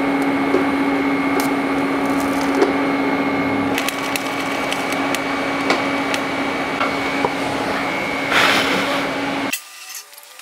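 TIG welding arc hissing and crackling steadily over a constant buzz, cutting off abruptly near the end.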